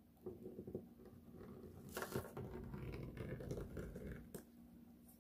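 Faint, irregular crackling and rustling of double-sided adhesive tape being peeled off the border of a diamond painting canvas, with a couple of small clicks.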